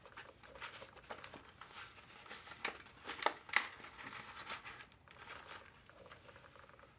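Faint rustling and crinkling of packaging being handled, with a few small clicks and taps, the clearest a little past the middle.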